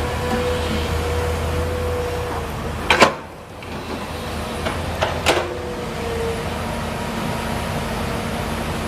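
Komatsu PC200 hydraulic excavator running steadily with a constant high whine over its engine drone. About three seconds in it is broken by a loud sharp knock and a brief lull, then a few more sharp knocks around five seconds in.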